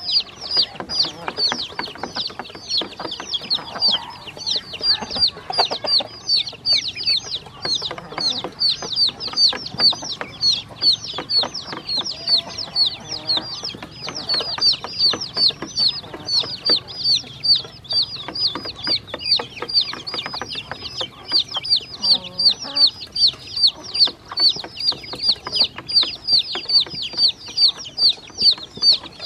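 Baby ducklings and chicks peeping non-stop: high peeps, each falling in pitch, about two or three a second, with soft tapping of bills on the metal bowl as they eat feed.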